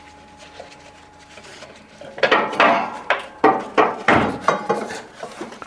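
Metal clanking and clinking as a lifting strap is wound around a washing machine's steel drum and frame: quiet at first, then from about two seconds in a run of sharp knocks with a short ring, roughly two a second.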